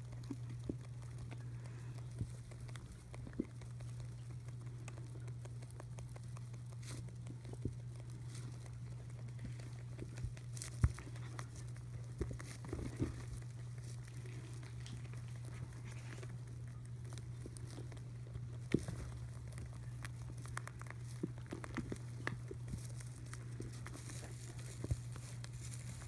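Baby Holland Lop rabbits munching hay: soft rustling of hay with many small, irregular crunchy clicks of chewing, over a steady low hum.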